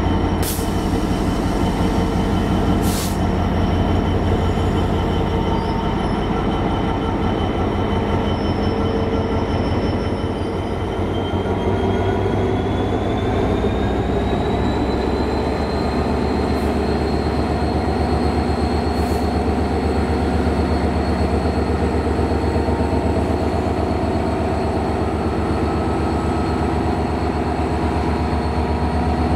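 Class 66 diesel-electric locomotive's two-stroke EMD V12 engine running close by with a deep, steady throb. About halfway through, a high whine rises in pitch and then holds. Two sharp clanks come near the start.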